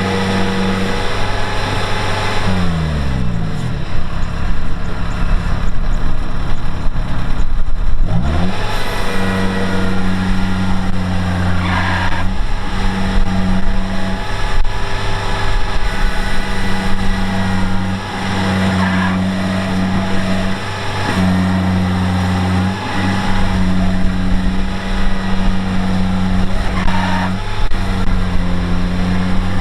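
Heavy diesel engine of a farm machine running hard. Its revs drop about three seconds in and climb again near eight seconds, then hold high with a few brief dips.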